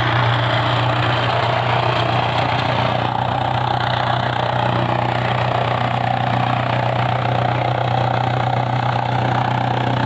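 A motor-driven machine running steadily, with a strong low hum and a mid-pitched drone that hold level throughout.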